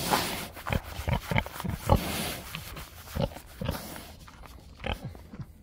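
A pig close up making breathy grunts and huffs, with many short clicking sounds in between.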